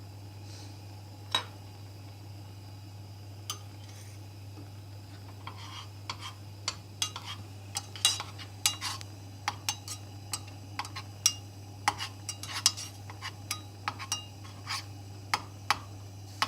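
A spoon clinking against a small pot while stirring a thick flour-and-sugar glue mixture as it cooks, in quick irregular taps that begin about five seconds in after a single earlier click.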